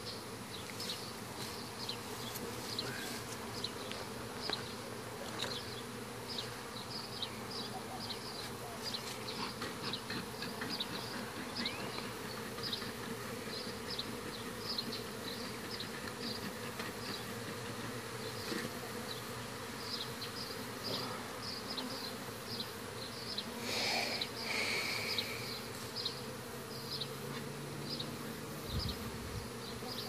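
Honey bees from a disturbed colony buzzing as a dense, steady hum, with short high ticks repeating about twice a second over it.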